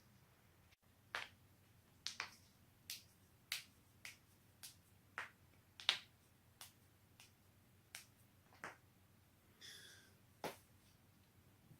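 A quick series of joint cracks: about fifteen sharp, separate pops at an uneven pace, the loudest near six seconds in.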